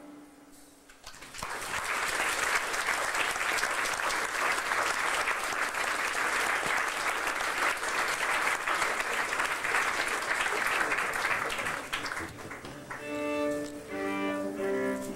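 Audience clapping for about ten seconds after a song ends. Near the end, a few short bowed string notes are played.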